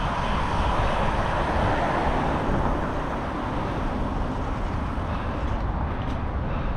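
A person breathing heavily close to the microphone, a long breathy swell in the first few seconds, over a steady low rumble.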